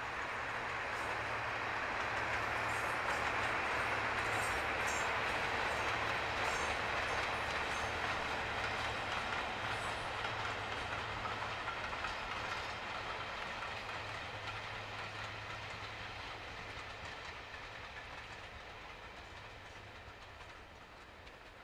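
Class 55 Deltic diesel locomotive, driven by two Napier Deltic two-stroke engines, hauling a passenger train past: a steady engine drone with wheels clicking over the rail joints. It is loudest about four seconds in, then fades as the train moves away.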